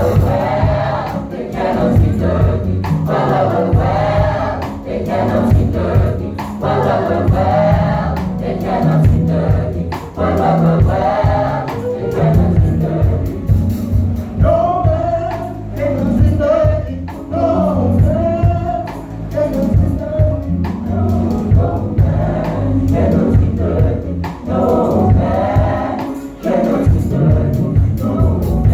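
Gospel vocal group singing in harmony, mixed voices, with a band behind them and a steady drum beat.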